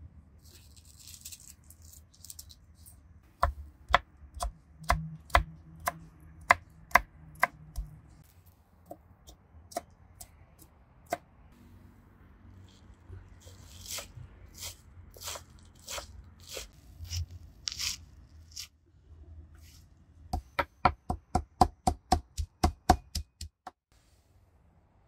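Knife chopping on a cutting board in sharp, separate strokes, irregular at first. Near the end comes a quick run of about four chops a second.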